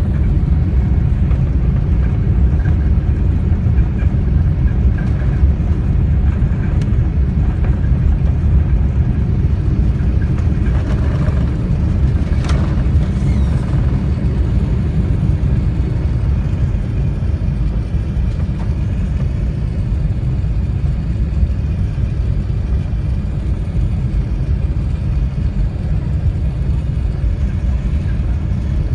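Airbus A380 cabin noise during takeoff: a steady, deep rumble of engines and airflow heard inside the upper-deck cabin, easing slightly in the second half.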